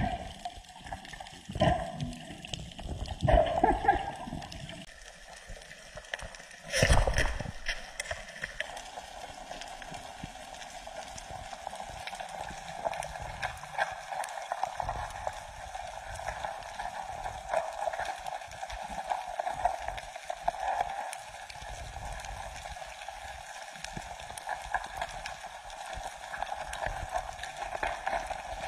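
Muffled underwater sound picked up through a camera's waterproof housing. Irregular thumps and water rushes run for the first few seconds, with a loud rush about seven seconds in. After that comes steady water noise with faint crackling ticks.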